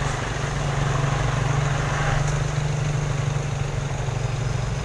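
Heavy cargo truck's diesel engine idling steadily: an even low hum that doesn't change.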